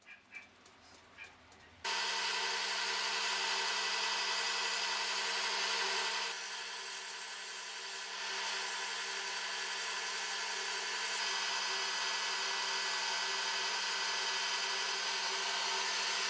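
Lathe running with a steady hum while a small wooden handle spinning on it is sanded, giving a dense rubbing hiss. It starts suddenly about two seconds in, after a few light clicks, and its tone shifts slightly a few seconds later.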